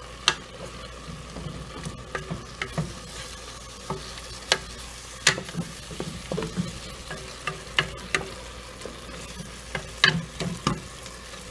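Wooden spoon stirring and turning sliced zucchini, corn and cheese in a pot, with irregular knocks and scrapes of the spoon against the pot over a steady sizzle of the cooking vegetables.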